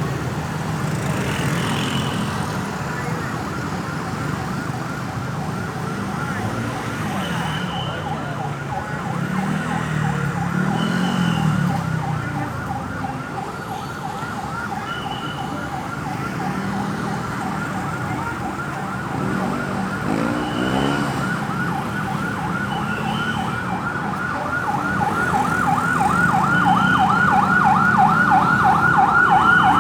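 Ambulance siren sounding a fast warble, several sweeps a second, over passing road traffic. It grows louder in the last few seconds as the vehicle approaches.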